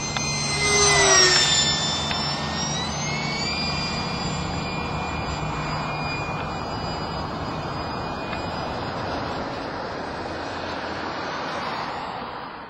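The 70 mm electric ducted fan of an RC F-4 Phantom jet whining in flight over a rushing hiss; it is loudest about a second in as the jet passes, its pitch falling steeply, then the whine rises again around three seconds in and holds steady.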